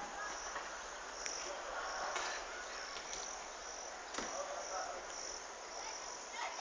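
Crickets chirping steadily outdoors, a repeated high-pitched chirp about twice a second, with a few faint clicks over the background.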